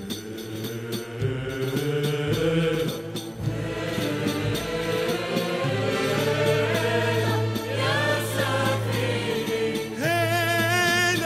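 Arabic musical-theatre song: a choir singing a chant-like passage over a steady low drone, with a voice with wide vibrato coming in strongly about ten seconds in.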